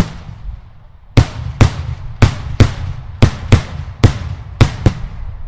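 Daylight fireworks bursting loudly: one sharp bang, then after a short pause a rapid run of about nine more, roughly two a second, each trailing off in an echo over a low rumble.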